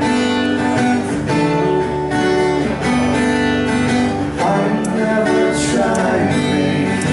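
Band playing a song's instrumental opening: strummed acoustic guitar chords, re-struck about once a second and ringing on, leading into the vocals.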